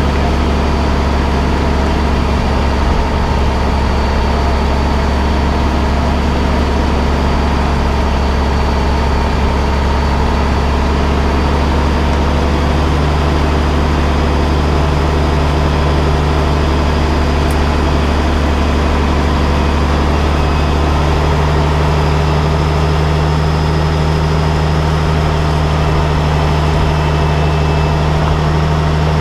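Semi truck's diesel engine idling steadily at close range.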